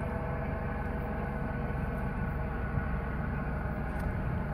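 Helicopter flying overhead, a steady drone made of several even tones that holds without change.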